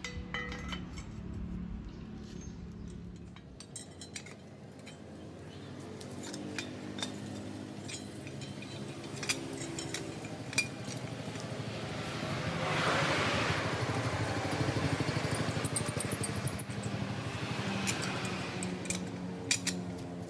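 Workshop work on a torque rod bushing: a steady machine hum with metal clinks and taps over it, a hiss that swells and fades in the middle, and a quick run of about eight sharp clicks a little past three quarters of the way through.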